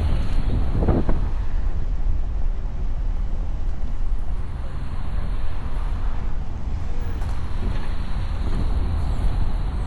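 A car driving, with a steady low rumble of road and engine noise and wind buffeting the microphone.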